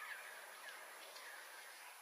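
Faint bird chirps: a few short, falling notes over a soft hiss.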